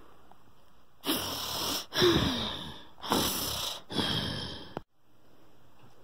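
A person doing mock snoring for a sleeping puppet: four loud, breathy snores in and out, one with a falling pitch, then the sound cuts off suddenly near the end.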